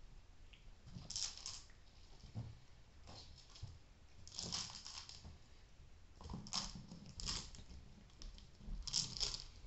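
A plastic treat-dispensing ball rattling with dry treats inside as cats nudge it over a laminate floor, in about six short bursts of clattering.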